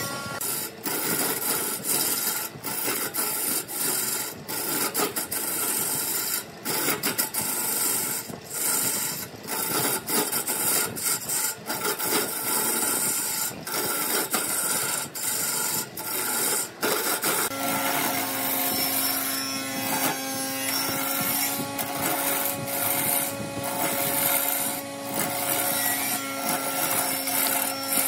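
Turning chisel cutting a spinning wooden blank on a wood lathe: a continuous scraping hiss broken by many brief dips. About two-thirds of the way through, a steady motor hum joins in.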